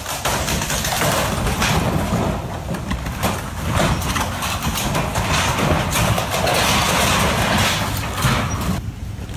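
Swollen, flooded river rushing past as a loud, steady noise that cuts off suddenly near the end.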